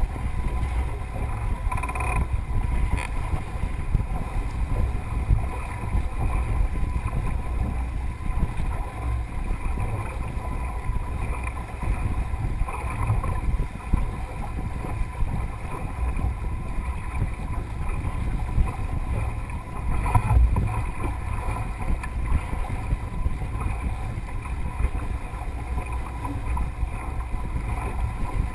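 Wind buffeting a deck-mounted camera's microphone, mixed with water rushing along the hull of a Melges 24 sailboat under way, a steady noise that swells briefly about twenty seconds in.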